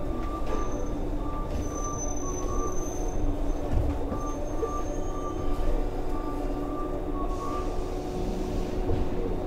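415 series 100-subseries electric multiple unit running, heard from inside the passenger car: a steady rumble of motors and wheels on rail with a steady hum. A short high squeal comes about two seconds in and again about four to five seconds in.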